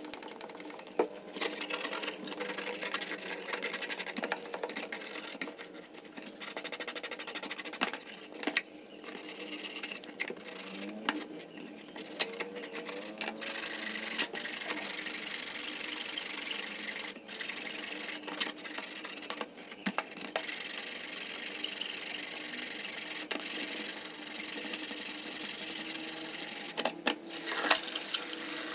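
Abrasive sanding and rubbing on radio parts, with a small motor running underneath. From about halfway the scraping turns into a steadier, louder hiss, broken by short pauses.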